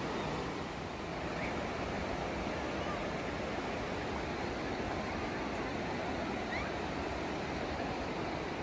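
Steady rush of a fast mountain river running over boulders, an even roar of white water.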